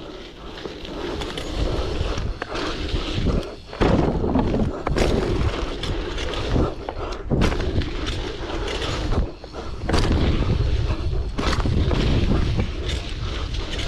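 Wind rushing over a helmet-mounted microphone on a bike ride over dirt jumps: a loud, surging rumble with several sharp knocks and thuds from the bike and its landings.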